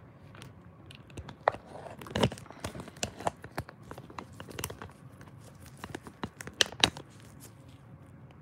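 Rustling and crinkling with a scattered run of sharp clicks and taps as objects are handled and moved about. The sounds die down about seven seconds in.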